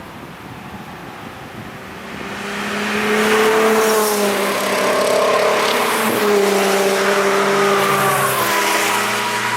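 Cars on a race track driving past at speed. About two seconds in the engines grow loud, and their pitch rises and falls as they pass and shift gear.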